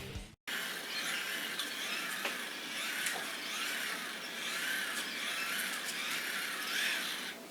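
Hand-crank dynamo of an emergency LED flashlight being wound: a geared whirring whine that rises and falls about twice a second with each turn of the handle, stopping near the end. The cranking recharges the dead flashlight's battery.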